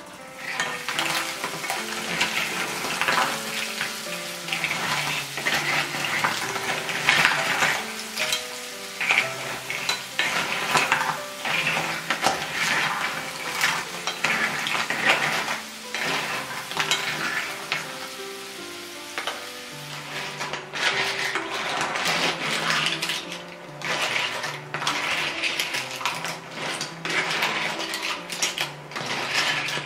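Manila clams sizzling in a small pan as they are stirred, their shells clattering against each other and the pan, over soft background music.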